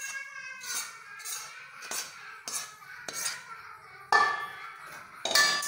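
Metal spoon scraping and knocking against a steel kadhai as sticky melted jaggery is scraped out into a bowl. The strokes come in a loose rhythm, with louder clanks about four and five seconds in.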